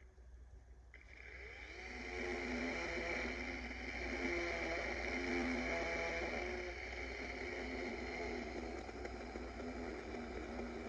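DeWalt 20-volt battery chainsaw starting up about a second in and running under load as it cuts wood, its motor pitch wavering as the load changes.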